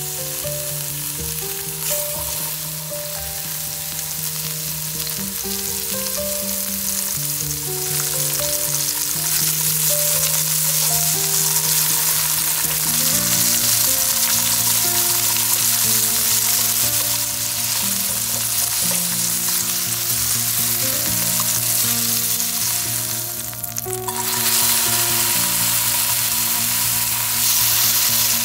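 Diced cucumber sizzling and spitting as it stir-fries in olive oil in a stainless steel frying pan, stirred with chopsticks, over soft background music. Near the end the sizzling drops out briefly and returns louder with diced tomatoes frying in the pan.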